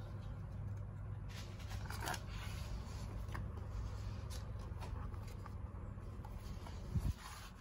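Hands handling a cardboard board book and its slide-in cardboard torch: soft rustles and light taps over a low steady hum, with a thump about seven seconds in.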